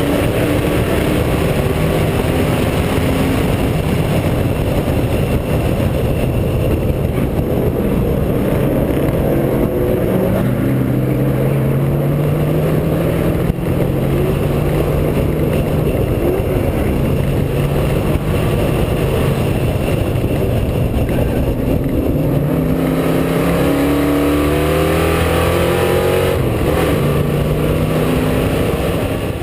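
Race car engine heard onboard under hard acceleration, its revs climbing and dropping back several times through upshifts, over a constant rush of wind and road noise.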